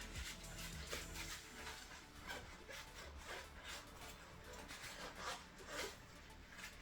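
Cloth soaked in alcohol rubbing over a motorcycle wheel, a run of irregular wiping strokes with a few short squeaks.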